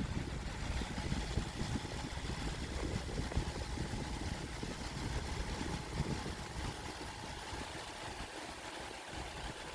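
Homemade stand fan driven by a 775 DC motor running steadily, a faint motor whine under an uneven low rumble of air buffeting the microphone.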